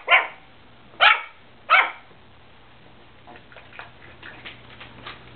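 Chihuahua barking: three short, high-pitched barks within the first two seconds. After that there are only faint, scattered light clicks.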